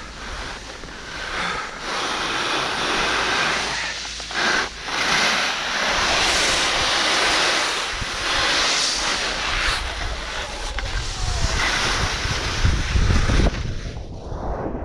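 Skis sliding and carving on packed snow, a steady rushing hiss, with wind buffeting the camera's microphone. The low wind rumble grows heavier about halfway through, and near the end the hiss thins out.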